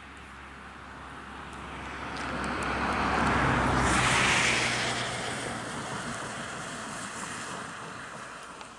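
A car passing by: tyre and engine noise that builds for about four seconds, peaks around the middle, then fades away.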